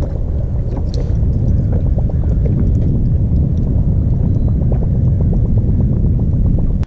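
Wind buffeting the microphone of a boat-mounted camera: a loud, dense, low rumble with a few faint ticks.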